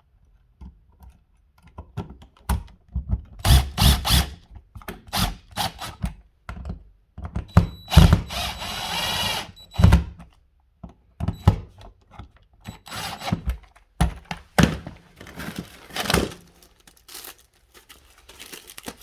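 Repeated knocks, clicks and clatter of an electrical receptacle and hand tools being worked back into a wall box, with a brief mechanical whir of about a second and a half around eight seconds in.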